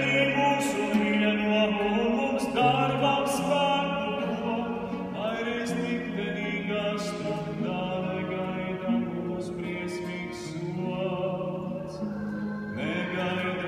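A man singing long, slow held notes over his own classical guitar, with plucked chords underneath. The music grows gradually quieter through the passage.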